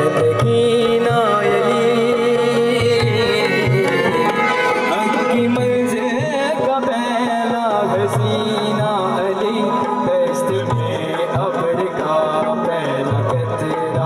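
A man singing a Sufi devotional song to acoustic guitar, over a steady hand-drum beat.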